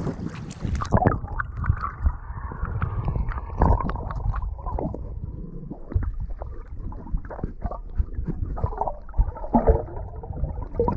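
Muffled underwater sound as the camera goes under shallow water about a second in: low sloshing and gurgling with scattered knocks and clicks from handling.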